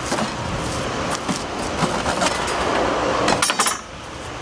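Camping gear being handled and set into a wooden handcart: a run of knocks and clatter, busiest just before it stops short about three and a half seconds in.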